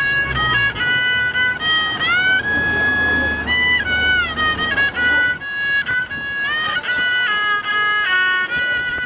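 Solo violin playing a melody of held notes with smooth slides between them.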